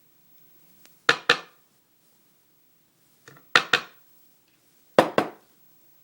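Three pairs of sharp metal knocks on a hard surface, the pairs about two seconds apart, with a faint tick before the first two.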